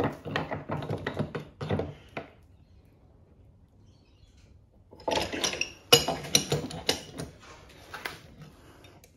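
Metal tools clattering as they are rummaged through. After a pause comes a run of sharp metallic clanks and knocks, loudest about six seconds in, as the diesel filter assembly is repositioned in a cast-iron bench vise.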